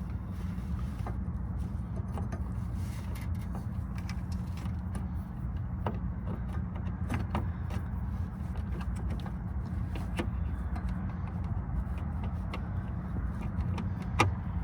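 Scattered light clicks and taps of a plastic headlight bulb and its wiring being handled and tucked into the housing, over a steady low hum.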